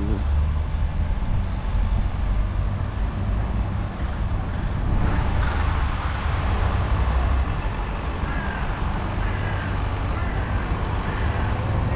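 City street traffic: a steady low rumble of passing cars and heavier vehicles, with no single event standing out.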